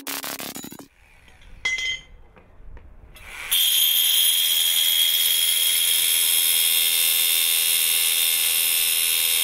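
An SDS Plus rotary hammer drill with an Irwin SDS Plus bit boring into a piece of steel. It starts about three seconds in and runs steadily with a high whine. Before it, electronic music ends in the first second, followed by a light metallic clink.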